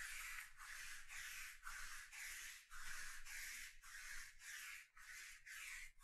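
Sticky lint roller being rolled back and forth over a cloth table mat, a rasping rub about twice a second.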